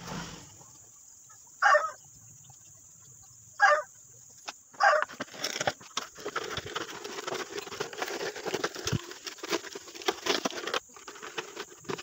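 Three short, loud chicken calls in the first five seconds, followed by a long stretch of scraping and clattering as the steel casing of a refrigerator compressor is slid back down over the motor.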